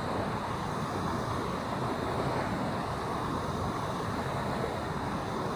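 Steady rush of turbulent water churning out below a weir's sluice gate.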